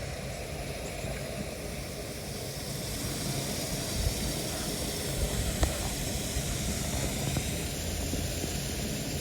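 Steady outdoor hiss with a low rumble, like wind on the microphone, and a couple of faint clicks about four and five and a half seconds in.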